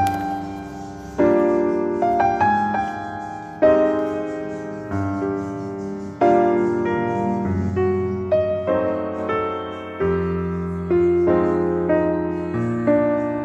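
Background piano music: a slow, gentle melody of struck notes and chords, each fading before the next.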